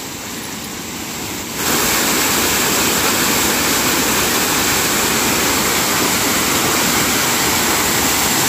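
Small waterfall pouring down a rock face: a steady rush of falling water that jumps suddenly louder about a second and a half in, then holds level.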